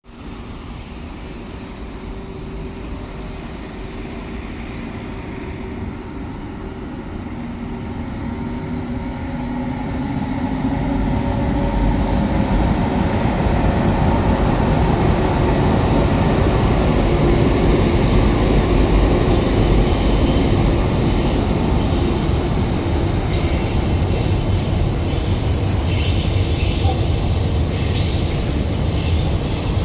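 DF11G diesel locomotive and its train approaching: a low engine drone with a few steady tones grows louder for about twelve seconds, then the train passes close with a steady, loud rumble of wheels on rail.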